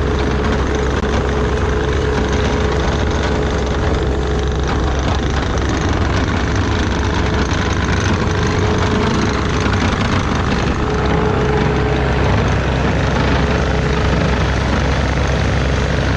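Bobcat T770 compact track loader's diesel engine running steadily under work, with a faint steady whine above the rumble.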